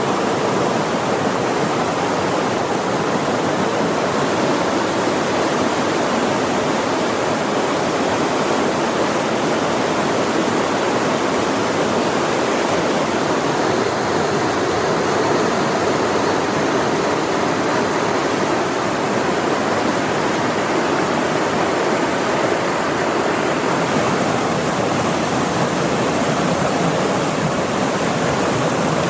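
Mountain stream flowing: a steady, loud rush of water that does not change.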